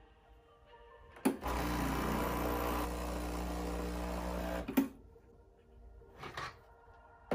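Breville Barista Express vibratory pump running for about three seconds, sending water through the empty group head's shower screen in a flush before the shot. The water splashes as the pump hums steadily, starting and stopping with a sharp click.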